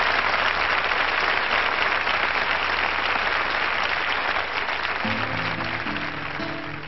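Studio audience applauding steadily, slowly dying away; about five seconds in, plucked guitar music starts under the applause.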